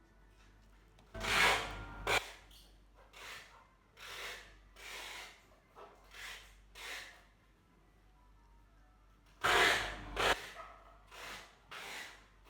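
A dozen or so short rubbing strokes at uneven intervals, the loudest two about a second in and about nine seconds in.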